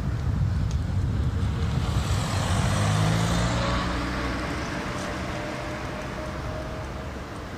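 Wind rumbling on the microphone, with an engine passing by that is loudest about three seconds in and then fades away.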